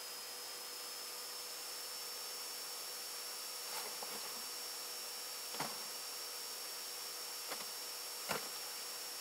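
Quiet room tone: a steady hiss with a thin high-pitched whine, and four faint soft knocks and rustles of a person shifting on a bed, the sharpest one near the end.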